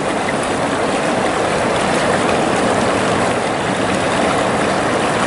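River water rushing steadily over stones, an even, unbroken wash of noise.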